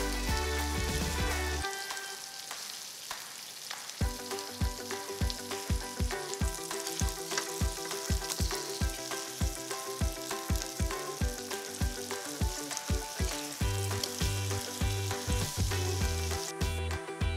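Grated chicken-and-potato fritters sizzling in oil in a frying pan, the hiss thinning near the end. Background music plays over it, with a steady beat from about four seconds in.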